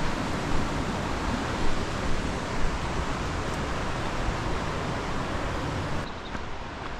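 Wind buffeting the camera's microphone: a steady rushing noise with low rumbling gusts, which drops in level about six seconds in.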